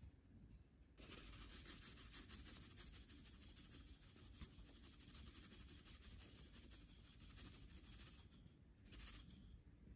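Faint, steady gritty hiss of granulated sugar poured in a stream onto liquid batter in a steel mixing bowl, starting about a second in, with a brief stronger rush near the end.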